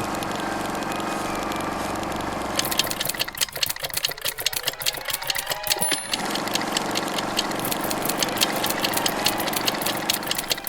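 A machine running with a steady hum; from about two and a half seconds in, a fast, even clatter of ticks joins it.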